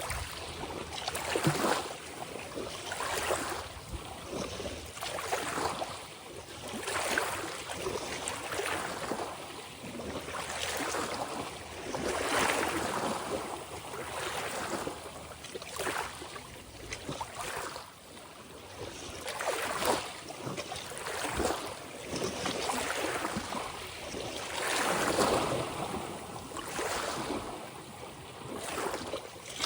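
Ocean waves washing and splashing, the water surging in quick repeated swells about every one to two seconds.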